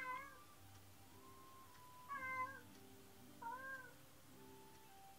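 Domestic cat meowing three times, each call rising and then falling in pitch. These are the lonely cries of a cat left home alone.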